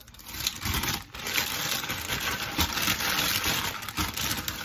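Plastic zip-top bag crinkling and rustling in the hands as it is sealed and shaken to mix the salmon marinade, with an irregular crackle throughout.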